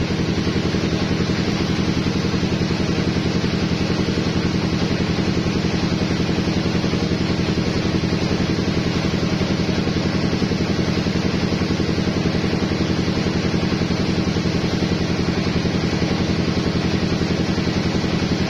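Engine-driven rice threshing machine running steadily, its engine firing in a fast, even beat.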